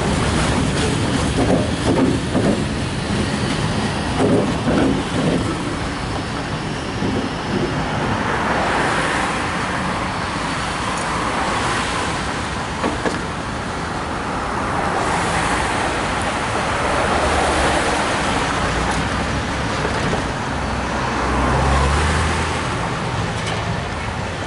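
Road traffic at an intersection: a steady wash of tyre and engine noise that swells and fades as vehicles pass, with a string of short knocks in the first few seconds and a low engine hum near the end.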